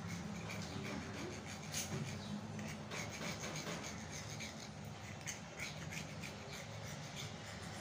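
Kitchen knife scraping and rubbing along the rim of a fluted steel bowl as it trims excess dough off the edge, in short irregular scrapes and light clicks, over a steady low hum.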